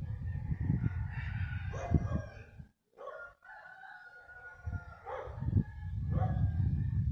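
Roosters crowing, several long pitched calls over a steady low rumbling noise; the sound drops out briefly about three seconds in.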